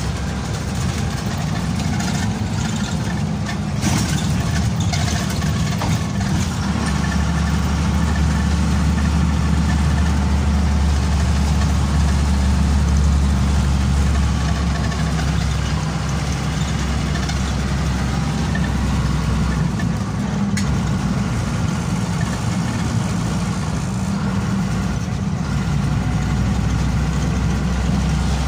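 Bus engine running and tyre noise on the road, heard from inside the cabin while driving. The low engine drone grows heavier for several seconds partway through, then eases back.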